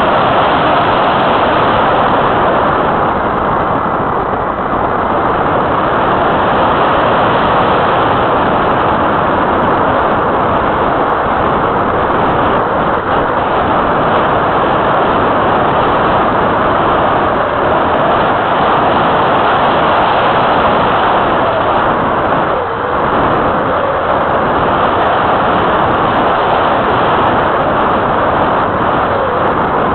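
Loud, steady rush of wind over the microphone of a small keychain camera mounted on the wing of an RC glider in flight.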